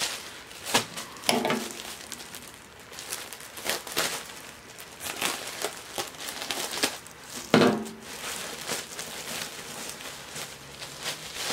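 Plastic shipping mailer crinkling and rustling as it is handled and crumpled, in irregular crackles with a few louder rustles, the loudest about seven and a half seconds in.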